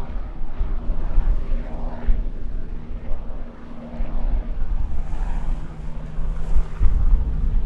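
Aircraft engines running at the airfield: a loud, uneven low rumble with a steady hum over it.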